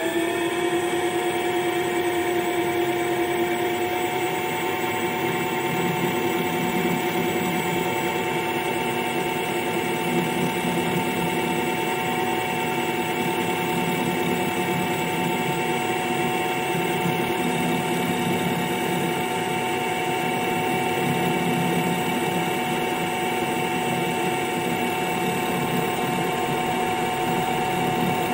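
Home-built CNC lathe running a finishing cut on a steel bar: the spindle turns at a steady speed, giving a loud, even whine of several fixed pitches as the tool feeds along the work.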